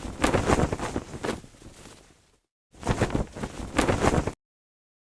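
Flying sound effect: rough, noisy whooshes in repeated surges, about two or three a second. It cuts off abruptly into dead silence twice, after about two and a half seconds and again near the end.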